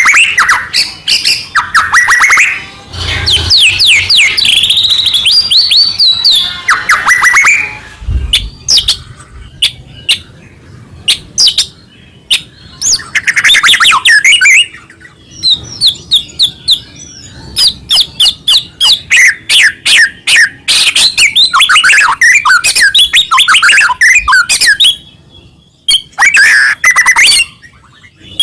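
White-rumped shama (murai batu) singing in full, continuous song: rapid runs of sharp clicking notes alternate with quick whistled trills and glides, broken by only short pauses.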